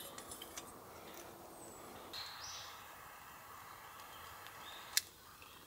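Quiet outdoor ambience: a faint, brief bird call about two seconds in, a few light clicks, and one sharp click near the end.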